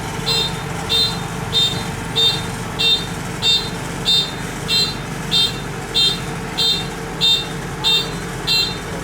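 The reversing warning beeper on a Kubota DC-93 combine harvester sounds a short high beep about one and a half times a second. Its engine runs steadily underneath as the machine backs up.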